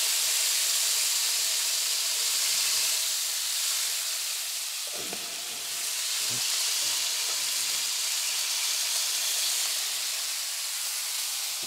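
Steady sizzling hiss from an open Kamado Joe ceramic grill as juice from smoked whole chickens drips onto the hot grate. There are two soft knocks about five and six seconds in as chickens are set into a stainless steel bowl.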